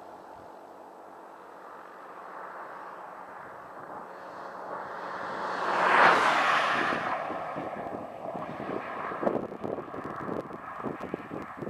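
A vehicle passing at highway speed: its engine and tyre noise swell to a loud peak about halfway through, then trail off.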